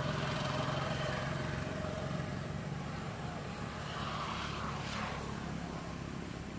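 Steady low engine drone in the background, with some brief louder noise about four to five seconds in.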